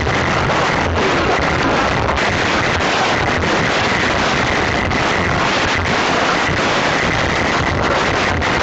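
Very loud music played through stacked car-audio speaker walls and subwoofer-filled car boots. It overloads the phone's microphone into a steady, distorted roar with no clear beat.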